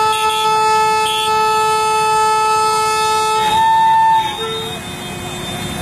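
Train horn sounding one long, steady blast of several tones together, which cuts off about four seconds in and is followed by a short final toot.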